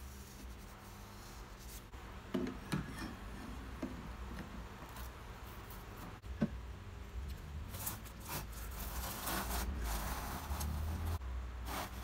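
Hands handling a finned aluminium heatsink and a panel on a workbench: rubbing and scraping, with a few light knocks about two to four seconds in and a sharper knock about six seconds in, then longer scraping strokes near the end.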